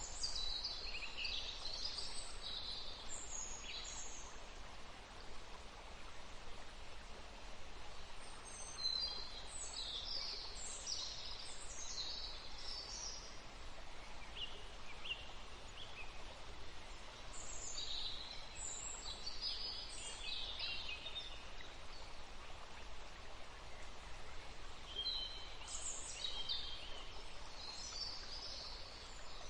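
Songbirds singing in bouts of high, quick chirping phrases every several seconds, four bouts in all, over the steady rushing hiss of a small forest stream.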